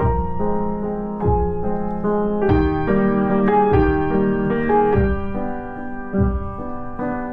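Background piano music: sustained chords and a slow melody with bass notes.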